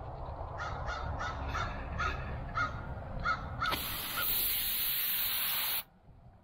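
A crow caws about eight times in quick succession. Then an aerosol can of wasp and hornet foam spray hisses loudly for about two seconds as it jets into the nest, cutting off abruptly.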